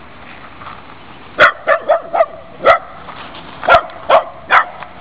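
Dog barking: about eight short, sharp barks in quick runs, starting about a second and a half in.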